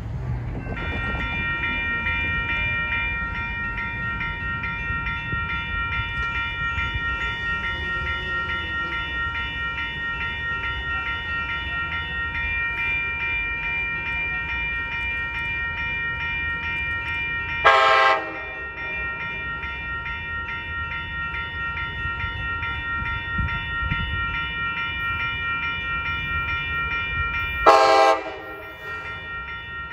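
Bilevel push-pull passenger train approaching, cab car leading. A low rumble runs under a bell that starts ringing steadily about a second in. The horn gives two short blasts about ten seconds apart, one past the middle and one near the end, and these are the loudest sounds.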